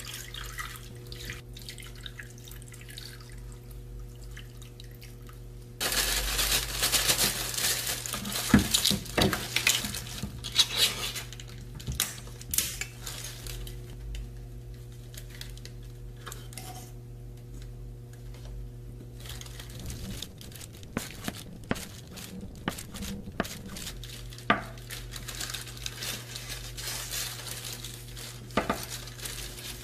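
Kitchen food-prep sounds over a steady low hum: clatter and clinks of a metal fork and tin can as luncheon meat is prised out, then near the end a chef's knife knocking on a wooden cutting board as the meat is diced.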